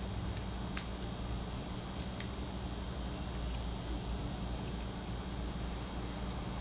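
Steady low hum and hiss, with a few faint ticks of small phone parts being handled, about a second in and again about two seconds in.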